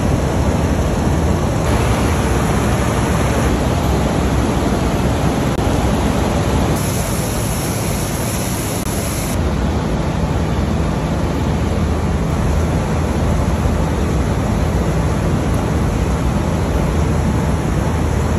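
Salt refinery machinery and conveyor belts running: a loud, steady mechanical drone with a low hum underneath.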